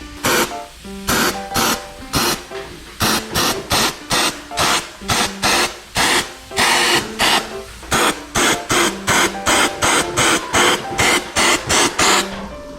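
Aerosol air-conditioner cleaning spray being sprayed in many short hissing bursts, about two a second, over background music.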